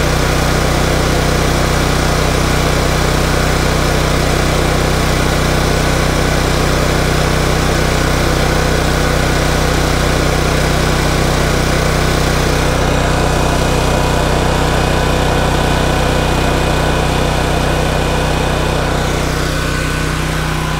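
Black Max 7000-watt portable generator's gasoline engine running steadily at constant speed, an even, unchanging hum.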